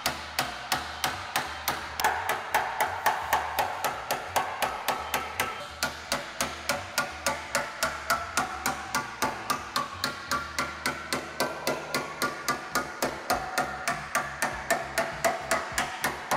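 A hand hammer striking a sheet-metal flange clamped in a hammer-forming jig, knocking the flange over flat. The blows are steady, about four a second, and the metal rings a little after each one.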